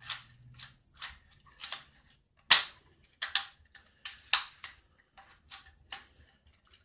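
Crosman 760 Pumpmaster BB rifle being worked by hand: a series of about a dozen short, sharp clicks and clacks at uneven intervals, the loudest about two and a half seconds in.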